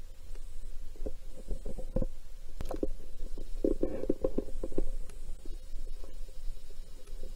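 Irregular knocks and thumps against a kayak over a low rumble, with a busier flurry of knocks around the middle, as a hooked flathead catfish is handled aboard.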